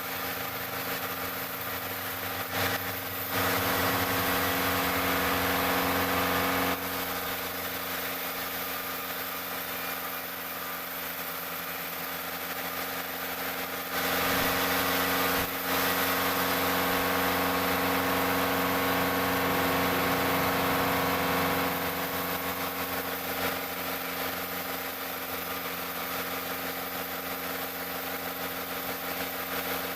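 A sawmill's engine running steadily. Twice it is joined by a louder, harsher stretch of several seconds, once about three seconds in and again from about fourteen seconds in, which fits the saw cutting through a teak log.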